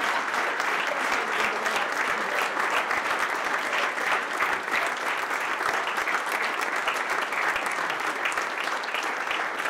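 A roomful of people applauding, many hands clapping at once in a steady, sustained ovation.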